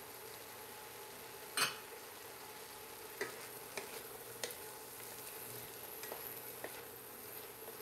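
A wooden spoon stirring diced white zucchini and vegetables in a frying pan over a low sizzle, with light scrapes and taps against the pan. There is one louder knock about one and a half seconds in.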